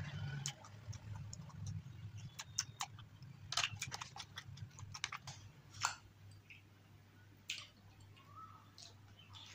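Close-miked eating sounds: chewing, with scattered sharp clicks and crackles as a plastic spoon scoops a crisp puri topped with curd from the tray.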